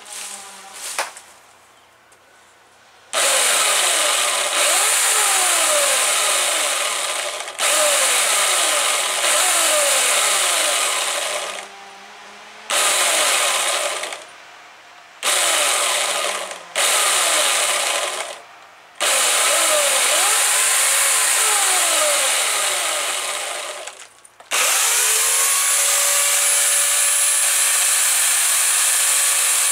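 Homelite electric chainsaw run in repeated bursts as the trigger is squeezed and let go, its whine sliding down each time the motor winds down, then held running steadily near the end. The saw is chewing up a pile of leafy branches.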